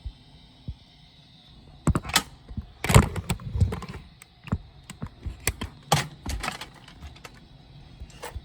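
Irregular clicks and knocks of hard plastic Nerf blasters and darts being handled, starting about two seconds in, with the loudest cluster about three seconds in.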